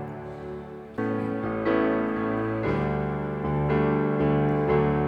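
Keyboard playing a slow instrumental passage of a worship song in sustained chords: a fresh chord is struck about a second in, and the harmony changes every second or so after that.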